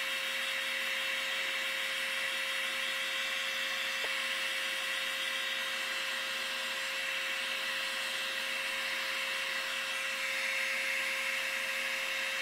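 Harbor Freight heat gun running steadily on its high setting: a constant blowing hiss with a steady hum from its fan motor.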